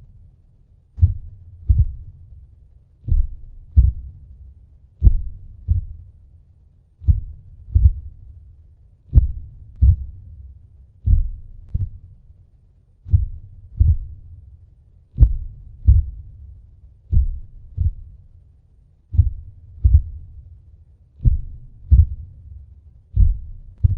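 Slow, deep heartbeat sound effect: double lub-dub thuds, the second following the first by under a second, repeating about every two seconds over a low rumble. It is made as the heartbeat of a giant vampire.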